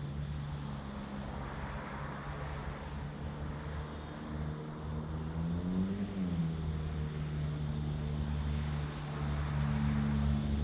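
An engine running steadily, its pitch rising briefly and falling back about six seconds in, with faint ticks above it.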